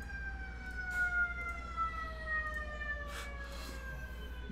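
A high, siren-like tone with overtones, sliding slowly and steadily down in pitch, with a few faint clicks near the end.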